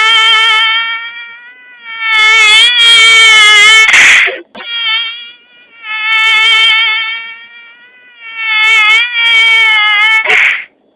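Mosquito whine sound effect, a buzzing tone that wavers up and down in pitch as if singing, in phrases of one to two seconds with short gaps between them. A brief louder burst comes near the middle and again near the end.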